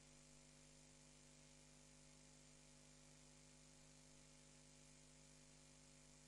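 Near silence: a faint, steady electrical hum with hiss.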